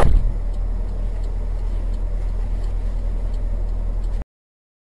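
A car's engine and road noise, a steady low rumble heard from inside the car, with a sharp knock at the very start. The sound cuts off suddenly about four seconds in.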